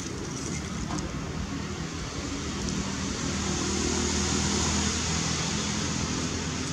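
A motor vehicle's engine hum with road noise, swelling to its loudest about four seconds in and then easing off, as of a vehicle passing.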